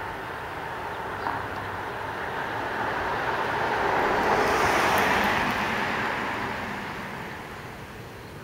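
A vehicle passing close by: a rushing noise that swells to a peak about halfway through and then fades away.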